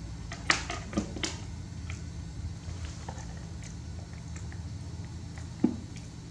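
Baby macaque eating a snack off a plastic spoon: a few sharp clicks and taps, three close together in the first second and a half and one more near the end, over a steady low hum.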